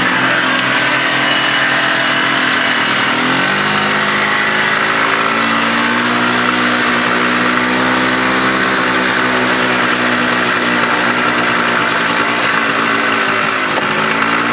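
ATV engine running steadily as the quad rides along a dirt trail, the engine note climbing about three and a half seconds in as it speeds up, then holding.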